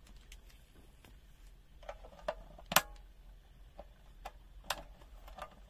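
Scattered light clicks and taps from a handheld digital multimeter and its test leads being handled, about seven in all, the loudest a sharp click a little before the middle.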